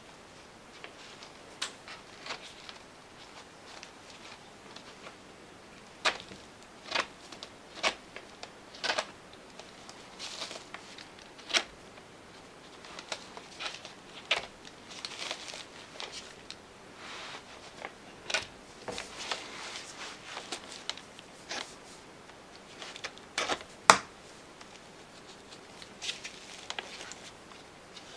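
Irregular small clicks and soft rustling as the stitches of a plush toy's fur seam are picked open with a hooked tool and snapped one by one. One sharp click, louder than the rest, comes about four-fifths of the way through.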